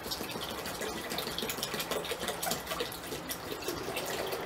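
Apple cider poured from a plastic jug into a metal cooking pot, a continuous stream of liquid splashing into the pot.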